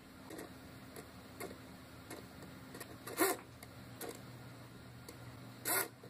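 Small hobby servo motor whirring in two short bursts, about three seconds in and again near the end, as it turns to follow a slider moved on a phone over Bluetooth LE. Faint ticks come in between.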